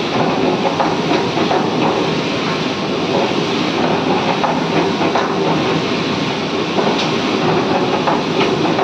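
Rice grains rattling as they tumble in a rotating mesh drum roaster and pour out of its mouth in a steady stream: a dense, continuous rattle of countless small ticks.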